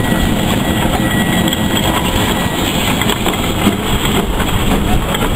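Small steam tank locomotive moving slowly past at close range, a steady mix of rail and running noise.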